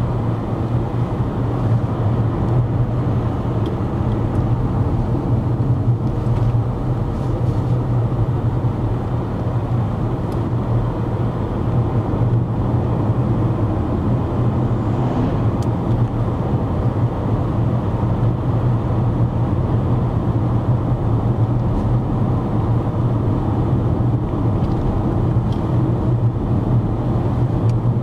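Steady low drone of a car driving, heard from inside its cabin: engine and road noise at an even speed.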